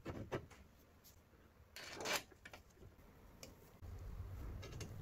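Aluminium extrusion frame parts and a metal corner bracket being handled: a few light clicks, then a short sliding scrape about two seconds in, then a low rumble near the end.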